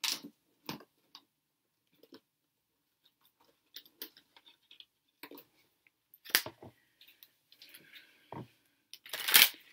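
Tarot cards being handled and shuffled: scattered light taps and card snaps, with a louder rustling shuffle near the end.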